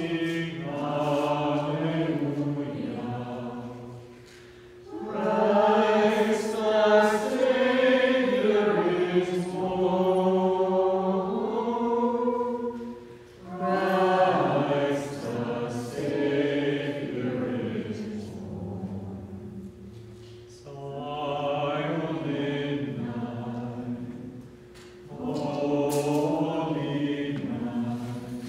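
Group of voices singing a hymn together in slow, chant-like phrases, with short pauses for breath between lines.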